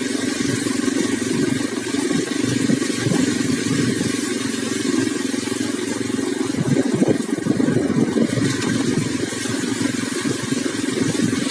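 Vehicle engine running steadily while on the move.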